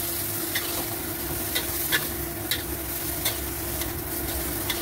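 Bean sprouts, egg and spring onions sizzling in a steel wok as a metal spatula stirs and tosses them, its edge scraping and clinking against the wok several times at uneven intervals.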